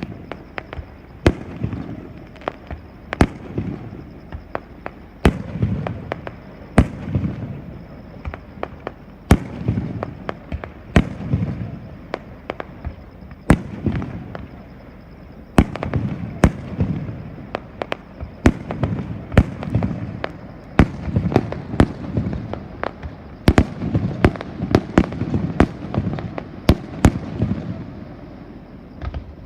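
Aerial fireworks bursting overhead: a long run of sharp bangs, some single and a few seconds apart, some in quick clusters, each followed by a low rolling echo.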